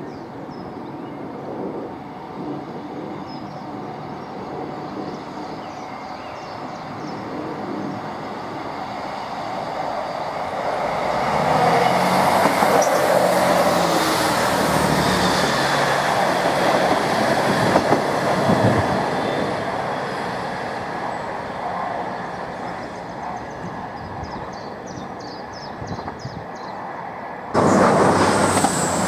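Diesel multiple unit approaching and passing below, its engine and wheel noise swelling to a peak midway and then fading as it runs away. Near the end a sudden, louder rush of noise begins.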